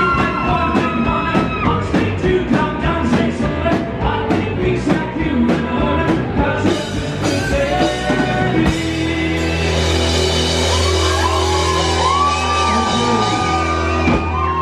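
Rock band playing live, with lead vocals, electric guitars and drums. About nine seconds in, the drumming stops and the band holds a sustained closing chord with cymbals washing over it, with voices over the chord.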